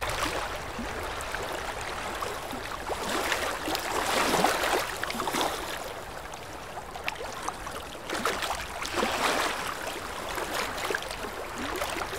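Choppy sea water sloshing and splashing around a microphone at the waterline, swelling and easing with the passing waves.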